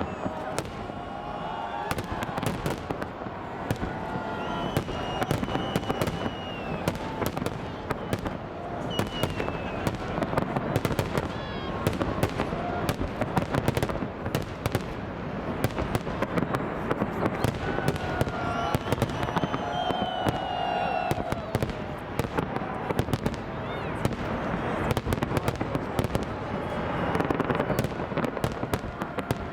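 Fireworks salute going off continuously: a dense, rapid stream of bangs and crackles with no pause.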